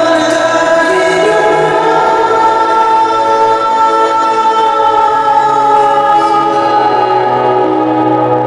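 Slow music with singing: long held, choir-like chords of voices, the notes changing every second or so.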